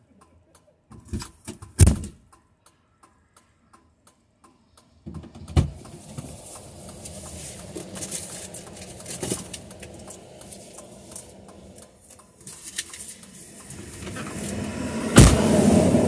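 Highway traffic going by a car parked on the shoulder: a car approaches and passes near the end, its tire and engine noise swelling and then fading. A few sharp knocks come about a second in and again about five seconds in.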